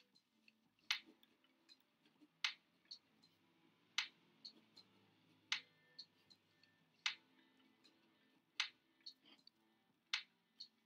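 Sharp ticks at an even pace, about one every second and a half, with fainter clicks between them.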